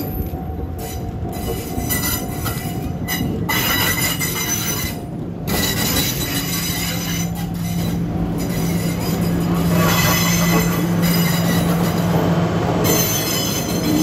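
Doctor Yellow type 923 Shinkansen cars being towed slowly over works track, their steel wheels squealing and screeching on the rails. A low steady hum joins in about six seconds in.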